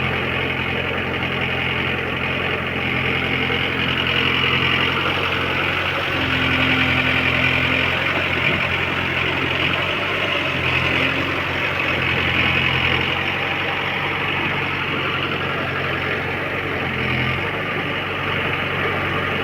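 Diesel engine of a JCB 3DX backhoe loader running steadily, its note shifting a few times as the machine works.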